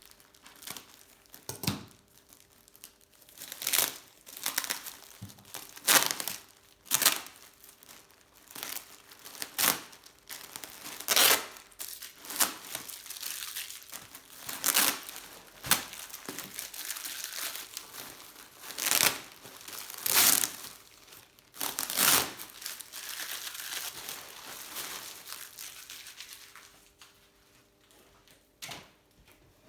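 Irregular crinkling and rustling, a run of sharp noisy rustles of handling, thinning out near the end.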